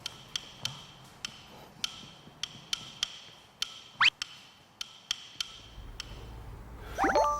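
Sparse wood-block ticks, about two a second, each with a short ring. About four seconds in comes a quick rising swoop, and near the end a louder cluster of rising tones, like an edited-in sound effect.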